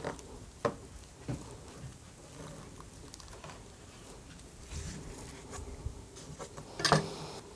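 Quiet kitchen handling of raw beef steaks on a cutting board: a few soft knocks and clicks of knife and meat against the board.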